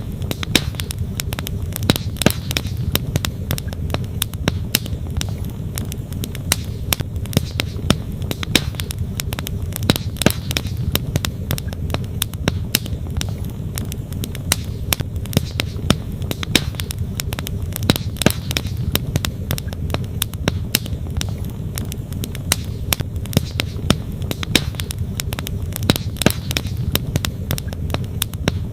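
Wood campfire crackling, with frequent irregular sharp pops and snaps of burning logs, over a steady low rushing of a flowing creek.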